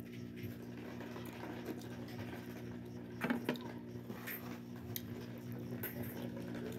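A person chewing a mouthful of food with small wet clicks, over a steady low hum. A brief louder sound comes about three seconds in.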